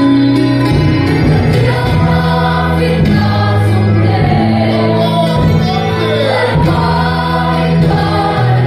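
A large congregation singing a worship song together, many voices in unison, over an instrumental accompaniment with held bass notes that change every second or so.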